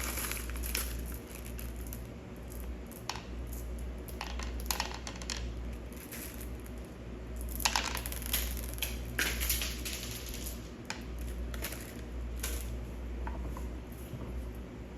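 Candy toppings such as Skittles being handled and added to a sundae: scattered light clicks and rustles at irregular intervals, over a low steady hum.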